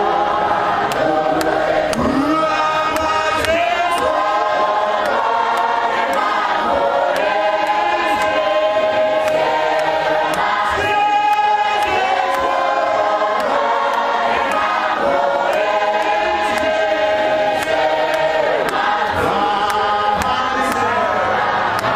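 A church congregation singing a hymn together in chorus, with a man's voice leading over a microphone. A sharp beat keeps steady time, a few strokes a second.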